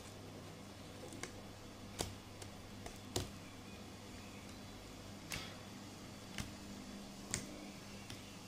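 Irregular sharp ticks and taps of a small stirrer knocking and scraping against a disposable plastic plate as pink slime is mixed, the loudest about two and three seconds in, over a steady low hum.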